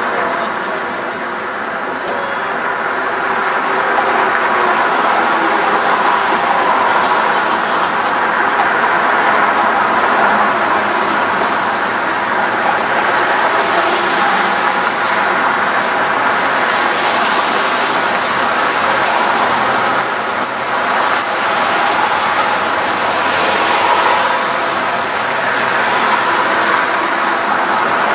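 Steady city street traffic noise, with several cars passing close by.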